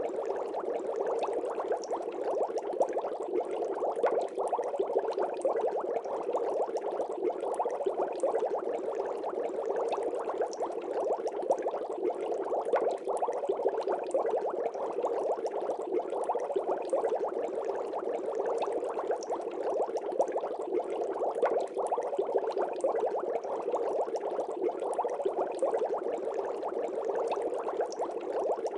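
Steady aquarium bubbling: a dense, unbroken stream of small bubbles and gurgling water.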